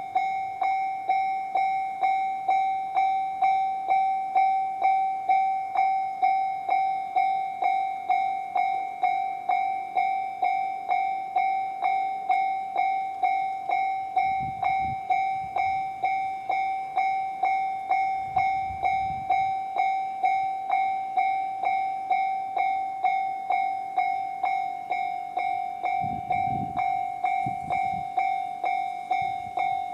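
JR-standard electronic level-crossing alarm ringing, an even, repeated ding of one pitch at about one and a half strikes a second. A few brief low rumbles come in about halfway through and near the end.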